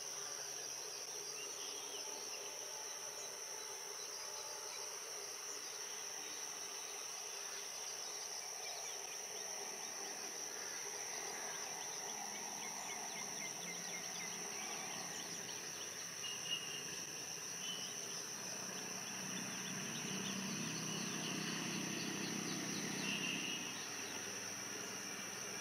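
Steady high-pitched drone of insects such as crickets or cicadas in open countryside. A faint low hum rises in the background from about halfway through.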